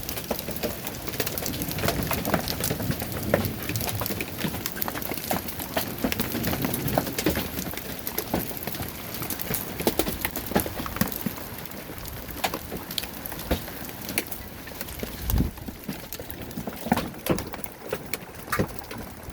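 Hailstones pelting down, a dense patter of sharp impacts over a rain hiss, thinning out and getting quieter from about two thirds of the way in.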